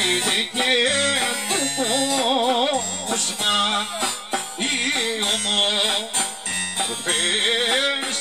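Live Greek folk song: a man singing through a PA system, his voice wavering in ornamented lines, over an amplified electronic keyboard with a low bass part.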